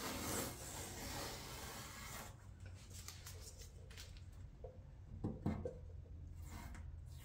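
Blue painter's tape being peeled off a truck's painted steel bed panel: a soft rasping for about the first two seconds. After that, quieter handling with a few faint ticks and a couple of short low thumps about five seconds in.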